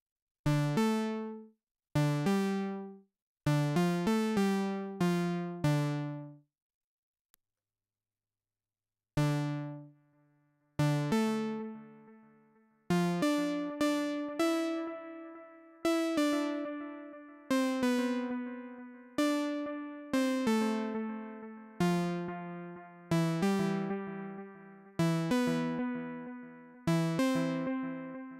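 Korg Monologue monophonic analog synthesizer playing short plucked notes through a Donner Yellow Fall analog delay pedal. A few separate notes first, a pause of about two seconds, then a steadier melodic line whose notes run into their own fading echoes.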